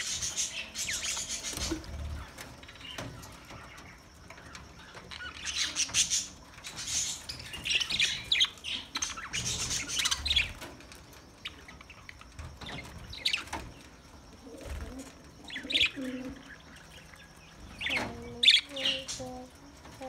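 A flock of budgerigars chattering, in bursts of quick, high twittering chirps with short lulls between them.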